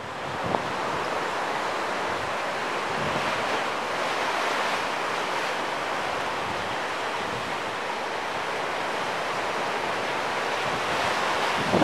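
Steady rush of ocean surf mixed with wind buffeting the microphone, with a single small knock about half a second in.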